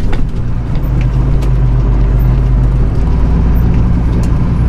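Straight truck's engine running at low speed, heard from inside the cab: a steady low drone whose pitch steps down slightly about three seconds in, with a few faint ticks over it.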